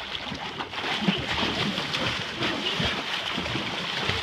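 A 75 lb halibut thrashing at the surface beside the boat, splashing and churning the water continuously.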